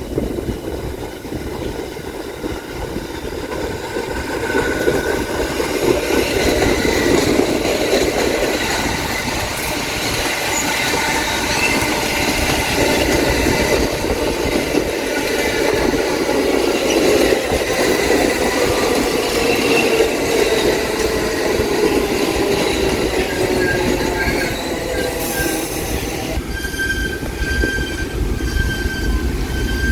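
New York City subway train running on the tracks, with steel wheels squealing in several high tones over a steady rumble and some clickety-clack. The sound grows louder a few seconds in. Near the end the rumble thins to a few steady high whines.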